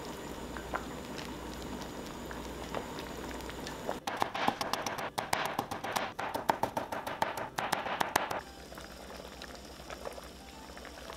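A pot of hot and sour soup bubbling at a simmer, then from about four seconds in a cleaver chopping fast on a cutting board, julienning carrot, for about four seconds, before a quieter simmer returns.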